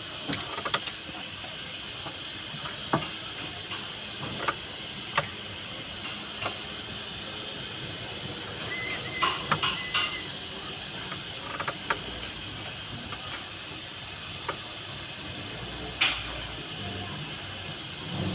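Scattered sharp clicks and taps of hand tools on engine parts, a few seconds apart and irregular, with one louder clack near the end, over a steady hiss.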